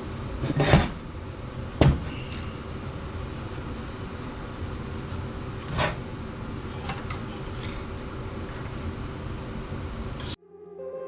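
A few sharp knocks and clatters of metal parts being handled and set down, over a steady shop hum. Music comes in near the end.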